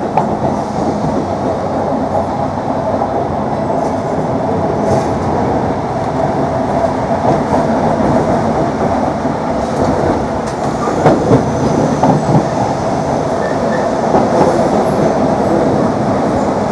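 Class 321 electric multiple unit running, heard from inside the carriage: a steady rumble of wheels and running gear with clicks over rail joints. Faint high squeals come in near the end.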